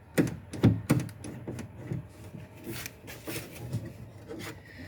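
Car door lock and latch mechanism of a 1998 Honda City being worked by hand, giving several sharp clicks and clunks in the first second, then lighter clicks and a brief rubbing scrape about three seconds in.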